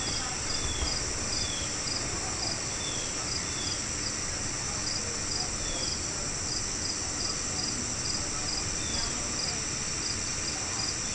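Outdoor insects, crickets or similar, making a steady high-pitched trill with a chirp repeating about twice a second. A few short falling chirps sound over it.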